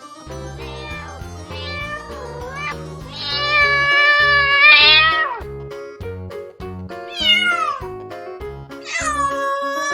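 Domestic cat meowing several times over upbeat background music with a steady beat; one long, drawn-out meow about three seconds in, and shorter meows falling in pitch later.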